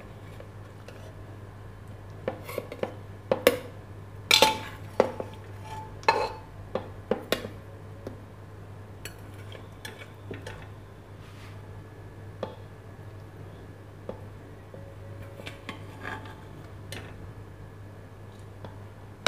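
Metal spoon clinking and scraping against the inside of a pressure cooker pot and a plate while cooked ridge gourd and tomatoes are lifted out. There is a quick run of sharp clinks in the first half, then a few scattered ones.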